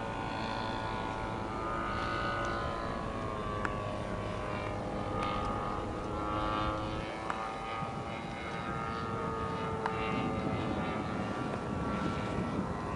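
Engine and propeller of a radio-controlled scale model P-51D Mustang in flight, a steady drone whose pitch slowly rises and falls as the model flies its manoeuvres.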